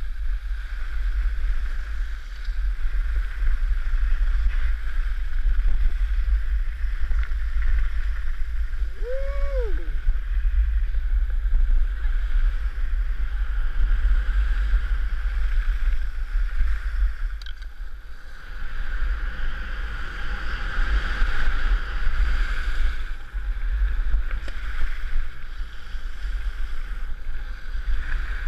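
Wind buffeting a helmet-mounted GoPro's microphone while skiing downhill, a steady low rumble, with the hiss of skis running over groomed snow that grows louder in the second half.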